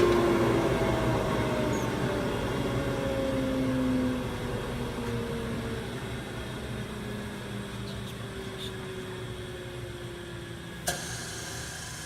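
Disc sander motor humming with a noisy whir, its pitch and loudness slowly falling throughout as it winds down. A single sharp click near the end.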